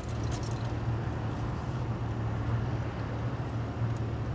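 Flatbed tow truck's engine running steadily with a low hum, heard from inside the pickup cab carried on its bed.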